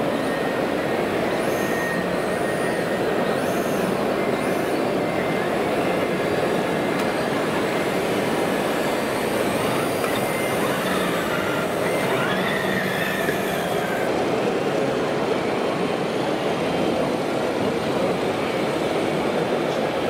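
Steady, dense background noise of a busy exhibition hall. Now and then come brief high electric whines that rise and fall, from the RC model machines' motors.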